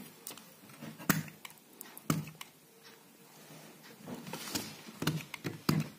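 Utility knife blade cutting and scraping at a laptop's plastic casing, trimming away excess around a hinge mount: a series of short, irregular scrapes and clicks.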